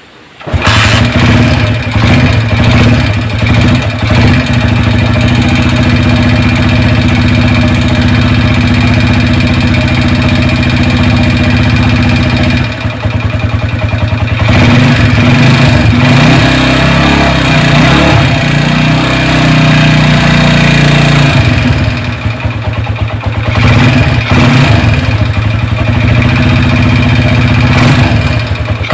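Motorcycle engine running loudly. Its speed changes about halfway through and again later. The engine is presented as one with a damaged-engine sound.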